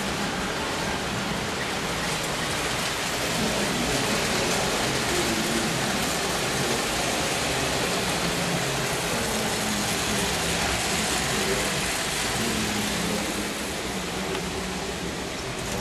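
O-gauge model trains running on the layout's metal track: a steady rushing rumble of wheels and electric motors, a little louder through the middle.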